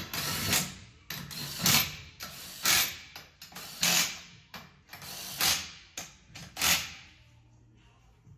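Cordless impact wrench running lug nuts onto a race car's wheel in about six short rattling bursts, roughly one a second, stopping near the end.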